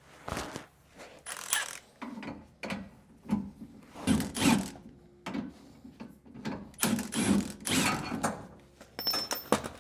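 Cordless impact wrench hammering in a string of short bursts as the trigger is pulled again and again, undoing the nut on the lower mounting bolt of a Ford F-150 rear shock absorber.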